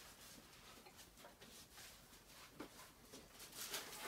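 Near silence: room tone, with a few faint soft knocks and rustles toward the end.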